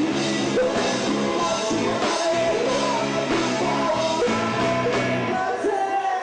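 Live band music with a male lead singer singing into a microphone over bass, drums and keyboards. About five and a half seconds in, the bass and drums stop and only higher held notes carry on, as at the close of a song.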